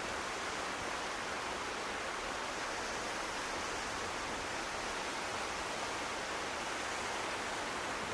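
Steady seaside ambience: an even rushing noise with no single waves breaking and nothing else standing out.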